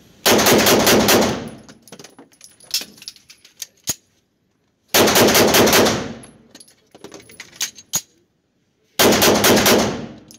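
Arex Rex Delta 9mm pistol fired in three rapid strings of shots with echo from the indoor range, and a few single sharp clicks between the strings. This is a function test with +P hollow-point loads from three magazines: each string runs to slide lock, and the pistol feeds without a malfunction.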